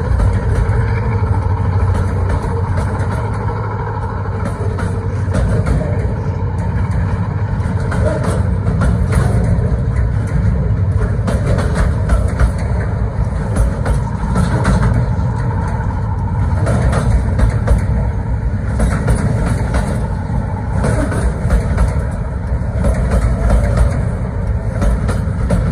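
Container freight train rolling past: a steady, loud rumble of wagon wheels on the rails, with frequent irregular clicks and clanks from the passing flatcars.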